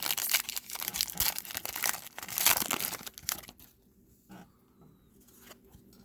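A wrapper on a pack of trading cards being torn open and crinkled, a dense crackling rustle that stops about three and a half seconds in, followed by a few faint soft handling sounds.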